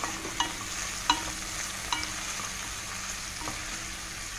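Chopped garlic, onion and ginger sizzling in hot oil in a pot as they are sautéed, with a wooden spatula knocking lightly against the pan about four times.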